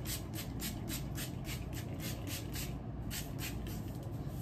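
A finger-pump mist bottle of curl refreshing spray is pumped rapidly, a quick run of short hissing squirts about four a second, with a brief break a little before three seconds in.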